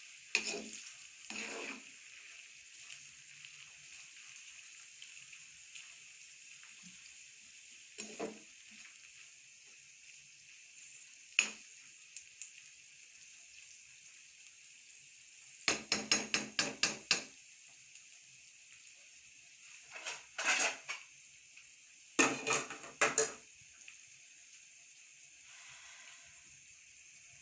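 Sliced bitter gourd half-frying in oil in a wok, a steady sizzle, while a metal slotted spoon stirs it and scrapes and clanks against the pan in scattered bursts, the longest a quick run of strikes about halfway through.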